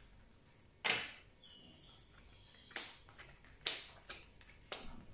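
Cards being dealt one at a time onto a table in a tarot spread, giving four short, sharp card slaps spaced unevenly, the first about a second in.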